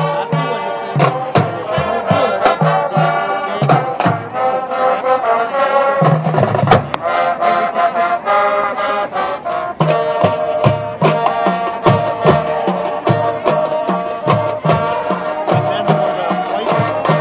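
Marching band playing: brass holding chords over drums keeping a steady beat.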